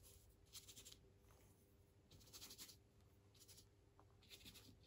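Faint strokes of a bristle brush laying oil paint onto the painting, several short passes a second or so apart.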